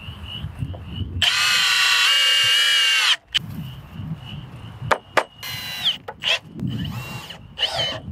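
Cordless drill driving a screw into a wooden board: the motor whines steadily for about two seconds under load, then runs in two shorter bursts later on, with a few sharp clicks between them.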